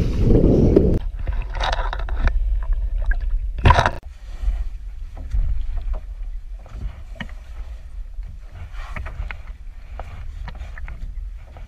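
Water splashing beside a small boat as a hooked shark thrashes at the surface, with wind buffeting the microphone for about the first second. A loud splash or knock comes nearly four seconds in, then scattered knocks and clicks against the hull as the fish is handled at the side.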